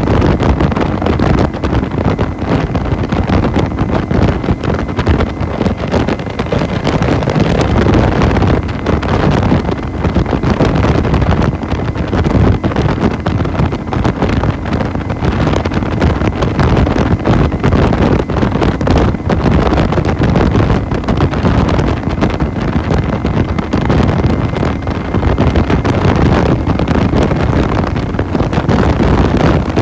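Wind buffeting the microphone of a Lifan Lycan V16 twin-cylinder cruiser motorcycle riding at highway speed, with the engine and road noise running steadily underneath.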